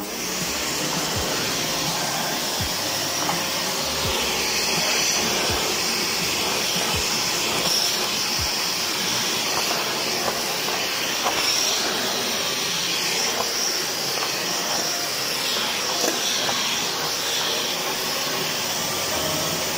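Samsung canister vacuum cleaner switched on and running steadily on its newly fitted motor, a loud, even rushing of air: the test run after the motor replacement.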